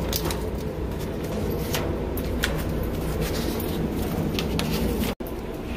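Steady low rumble and hum of an indoor shooting range's ventilation, with scattered faint clicks and knocks of gear on the bench. The sound cuts out for an instant near the end.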